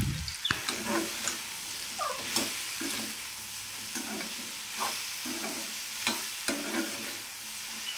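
Sponge gourd cubes frying in oil in a kadai, sizzling steadily, while a perforated slotted spatula scrapes the pan and turns them in repeated strokes every half second to a second.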